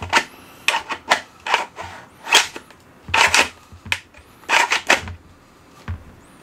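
A 3D-printed Talon dart magazine being pushed into and released from a foam-dart blaster's mag well: an irregular series of about eight plastic clacks and short sliding scrapes as the mag latch catches and lets go.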